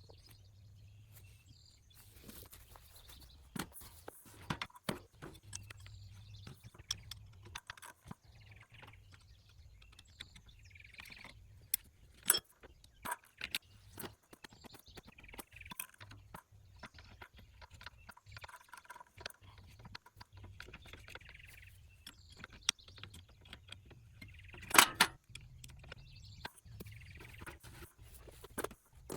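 Scattered clicks, clinks and knocks of tools and metal chair parts being handled during the start of the repair, with one louder knock near the end.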